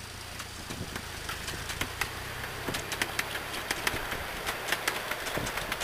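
Miniature diesel-outline locomotive's engine running with a low hum as it draws a train of small passenger carriages past, along with a run of sharp clicks from the carriage wheels going over the rail joints.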